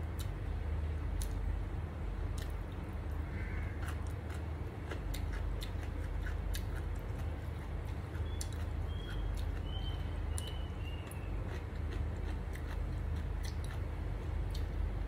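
A person chewing a mouthful of rice and pickled greens close to the microphone, with frequent small wet mouth clicks and smacks, over a steady low hum.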